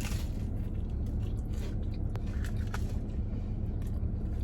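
Biting into and chewing a crunchy, sugar-coated fried mozzarella Korean corn dog: scattered short crisp crunches over a steady low hum.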